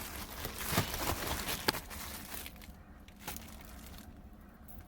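Packaging rustling and crinkling as it is handled, with a couple of sharp clicks, then quieter handling.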